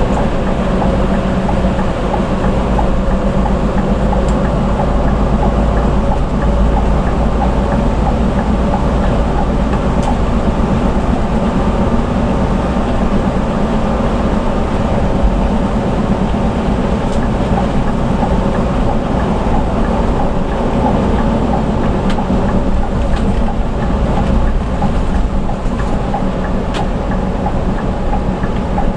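Bus cruising at highway speed, heard from inside the cabin: a steady engine drone over deep road rumble, with a few faint rattles.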